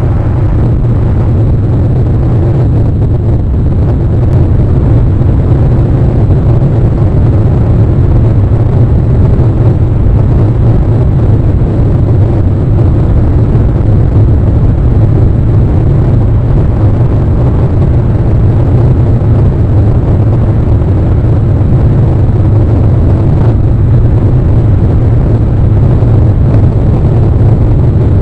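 Wind buffeting the outdoor camera microphone: a loud, steady low rumble with no let-up.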